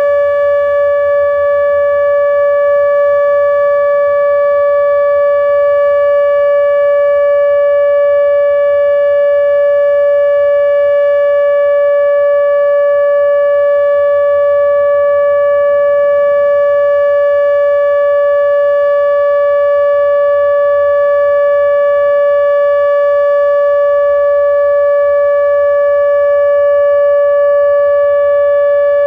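ATI HPSS-32 electronic warning siren sounding a steady alert tone: one unwavering, loud pitch with its overtones. This is the continuous alert signal of a nuclear power plant's siren-system test.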